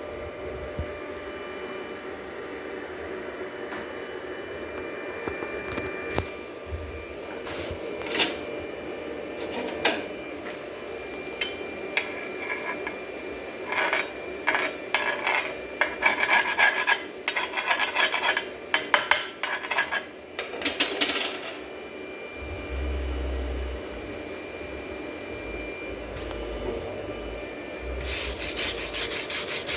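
Stick welding with a 7018 coated electrode: the arc crackles and sizzles in irregular bursts over a steady background hum, with the crackling heaviest in the middle and again near the end.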